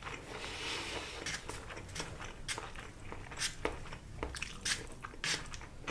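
Close-miked chewing of a mouthful of sushi, wet and squishy, broken by many short crisp crunches.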